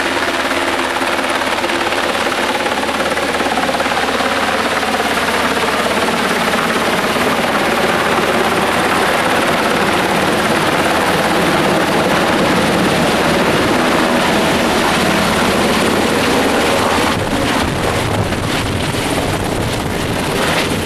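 Black Hawk military helicopter flying in low to land, its rotors and turbine engines running loudly and steadily. In the last few seconds, as it comes close, the sound turns choppy with buffeting from the rotor wash.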